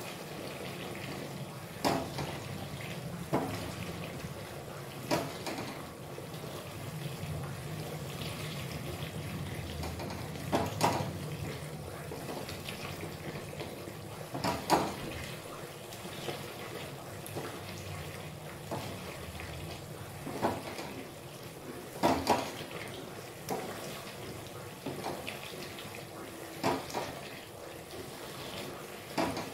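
Wooden churning stick spun between the palms in a wok of cooking mashed taro: a steady wet sizzle and swish, with occasional sharp knocks of the stick against the wok.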